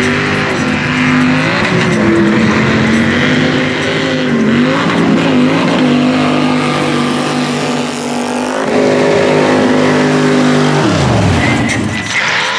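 Mega truck engines running hard under heavy throttle, the engine note rising and falling as the trucks race. About eleven seconds in, one engine's pitch drops steeply as it lets off or passes.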